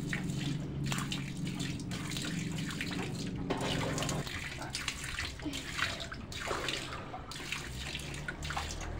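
Pond water splashing and sloshing in many short bursts as a fishing net is dragged through it, with a low steady hum underneath that stops about four seconds in.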